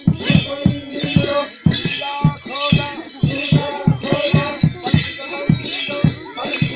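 A drum beaten in a fast, steady dance rhythm, with a metallic jingling shimmer above the beat.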